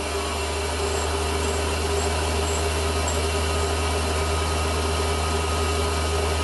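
Small metalworking lathe running steadily: a low motor hum with a steady higher tone, as a hand tool is held to the spinning workpiece.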